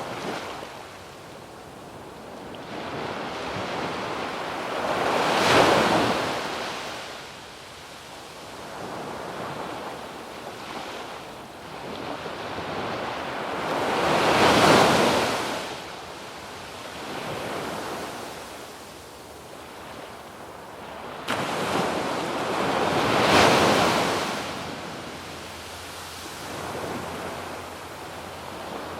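Ocean waves breaking on a sandy beach, three large breakers about nine seconds apart, each swelling to a crash and washing back, with smaller waves between. Light wind on the microphone.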